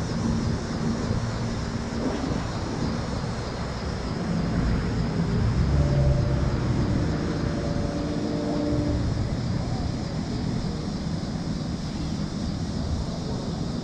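Steady road traffic noise, with one vehicle's engine passing and growing louder about five to nine seconds in.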